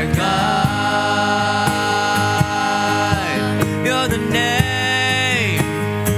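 Live worship band music: a singer holds long notes that slide down at the ends over a steady drum beat.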